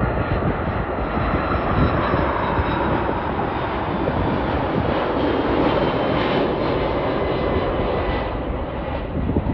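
Jet airliner passing close by, its engines giving a loud, steady rush with a whine that drops in pitch about two seconds in.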